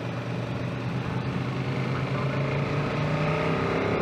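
Motorcycle engine running steadily under way, its revs rising about three seconds in.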